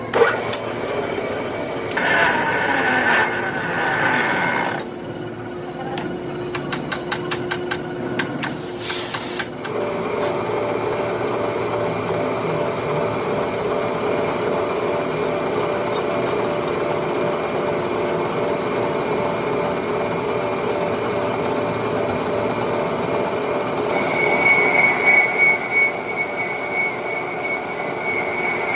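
Lathe tool cutting a cast iron V-belt pulley, squealing with a steady high-pitched tone over a lower hum. The squeal grows louder near the end. A short hiss comes just before ten seconds in.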